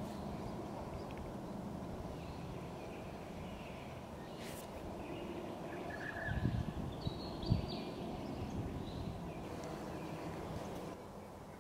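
Outdoor bush ambience: a steady low rumble with a few faint, short bird calls, and two dull thumps just past the middle, the second sharper and louder.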